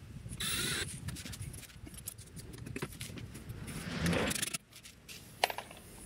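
Cordless drill/driver driving screws up into an RV's underbelly panel: a short whir about half a second in and a longer, louder one around four seconds in, amid rattling and scraping from handling the screws and panel.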